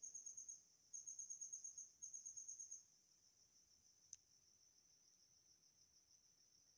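Faint insect chirping: a high, pulsing trill in three bursts over the first three seconds, then a fainter steady trill. One faint click about four seconds in.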